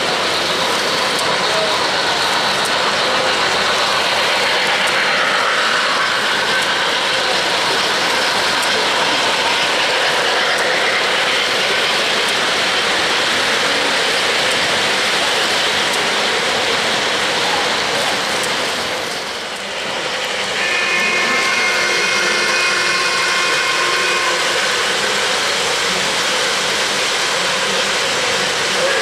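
O-gauge three-rail model trains running on a layout: a steady rolling, rushing noise of wheels on track and motors. Past the middle, a chord of several held tones sounds for about three seconds.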